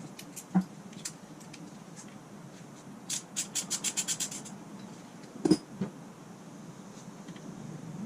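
Metal-on-metal clicks and knocks from hand tools at work on the motorcycle: a few single clicks, then a run of about eight quick, even clicks, then one louder clank.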